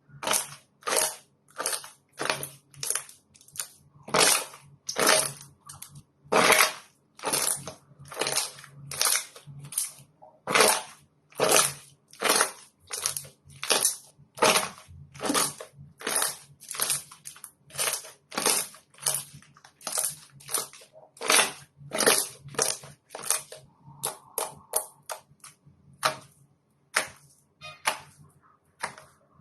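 Slime being squeezed and pressed by hand, each press making a short sticky burst of sound, a little under two a second; the bursts get shorter and closer together near the end.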